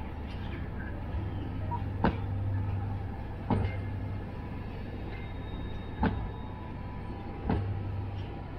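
Freight train of bogie cement hopper wagons rolling slowly past, a steady low rumble broken by four sharp wheel clacks in two pairs, as the wagons' wheelsets cross a rail joint.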